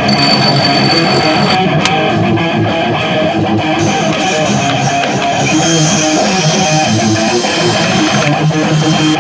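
Background music: a loud, steady track led by strummed electric guitar over bass.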